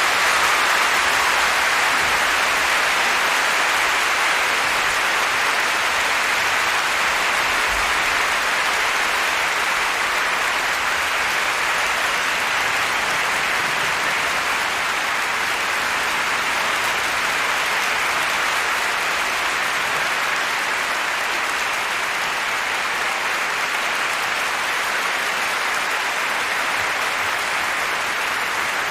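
Large concert-hall audience applauding steadily at the end of a song medley.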